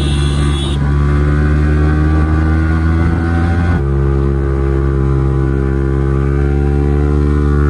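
Motorcycle engine pulling under load while riding, its note climbing slowly; about four seconds in the note breaks off abruptly, as at a gear change, and then climbs again.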